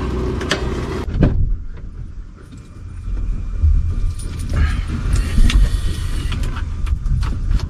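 A truck running with a steady low rumble, with repeated clicks and rattles over it.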